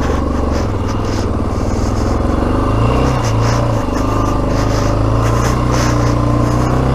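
Yamaha XT600E's single-cylinder four-stroke engine running steadily under load, its note dipping briefly about three seconds in.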